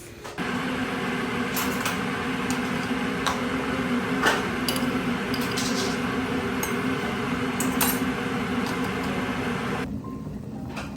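Steady hum of a kitchen appliance running, with a few light clinks and taps of dishes over it. The hum cuts off suddenly near the end.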